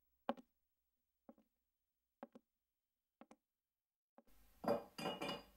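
Light taps and clinks of small china and cutlery during coffee-making: four short single taps about a second apart, then a louder run of ringing clinks about four and a half seconds in.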